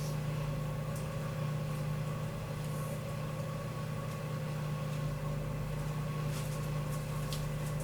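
Steady low mechanical hum from a running motor, with a few faint light clicks near the end.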